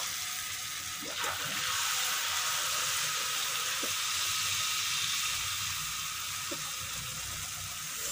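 Hot cooking oil in a wok sizzling steadily as spoonfuls of peyek batter fry in it, with a few scattered small pops. The sizzle swells about a second in.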